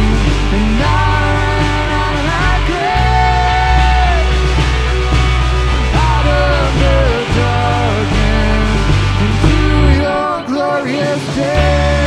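Contemporary rock-style worship song: a sung melody over a full band with a heavy, sustained bass. The bass drops out for about a second near the end, then comes back in.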